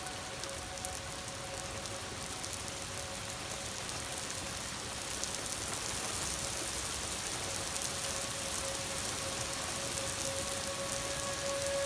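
Outdoor tornado warning siren holding one steady tone, faint in the middle and swelling louder near the end, over the steady hiss and patter of falling rain.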